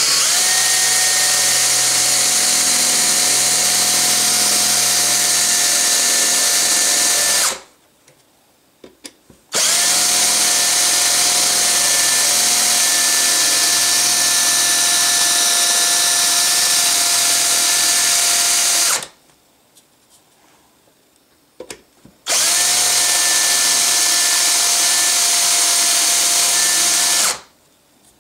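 Handheld power drill boring out a metal rivet in a rifle receiver. The motor runs at a steady pitch in three long bursts of roughly eight, nine and five seconds, with short pauses between.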